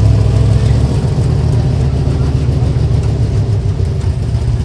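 Stock car engine running steadily with a loud, deep rumble.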